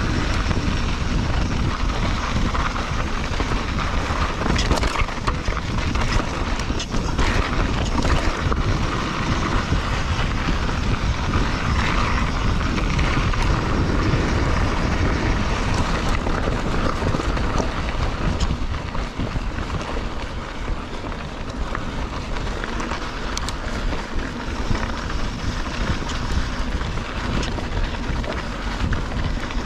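Wind buffeting the microphone of a handlebar-mounted camera on a mountain bike, over the steady noise of its tyres rolling on a dirt trail, with scattered clicks and rattles from the bike.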